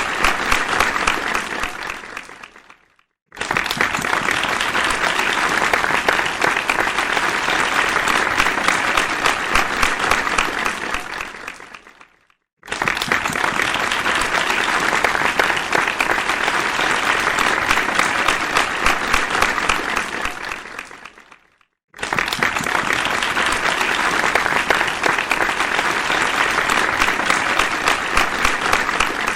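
Crowd applause in repeated rounds of dense clapping. Each round starts suddenly, runs for about eight seconds and fades away to a brief silence before the next begins. The silences fall about three, twelve and twenty-one seconds in, and the last round is fading at the end.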